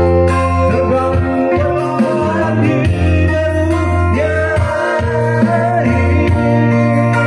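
Live organ tunggal band music: an electronic keyboard and an electric guitar playing, with a man singing into a microphone.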